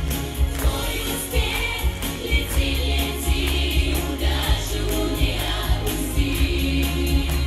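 Children's pop vocal ensemble and children's choir singing an anthem in Russian together, over music with a steady drum beat and heavy bass.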